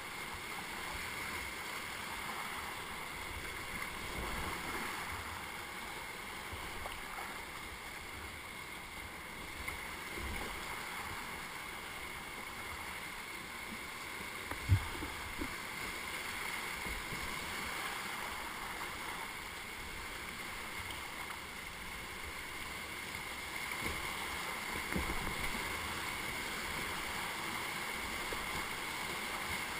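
Whitewater rapids rushing steadily around a kayak, with a few dull knocks and one sharp knock about halfway through.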